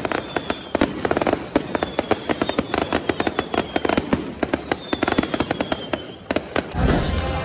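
Fireworks going off overhead in a dense, rapid crackle of many bangs, with a few faint falling whistles. The crackling stops abruptly shortly before the end.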